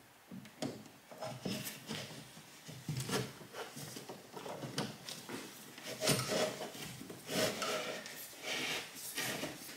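Heavy electrical cable being fed through a breaker panel and a drywall opening, with irregular rubbing, scraping and light knocks against the panel and wall.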